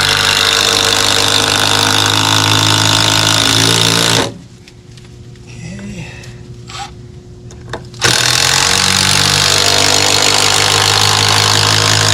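Cordless power driver driving long screws up through a 2x4 block into a deck joist. Two long runs of about four to five seconds each, with a pause of about four seconds between them.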